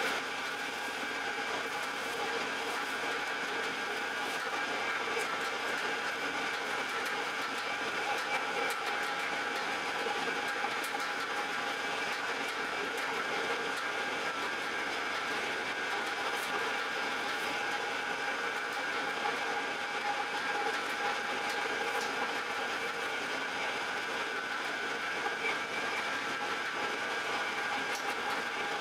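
Bakery dough-kneading machine running steadily as its hook works a large bowl of dough. A constant mechanical whine made of several steady tones.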